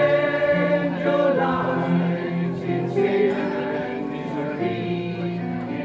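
Mixed community choir singing in parts, several voices holding notes together and moving to new chords every second or so.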